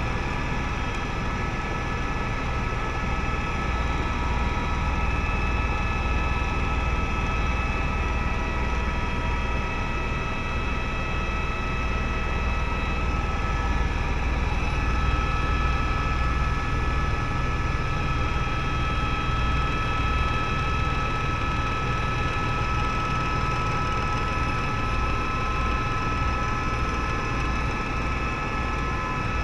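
Helicopter in flight heard from inside the cabin: a steady low rotor rumble under a constant high turbine whine.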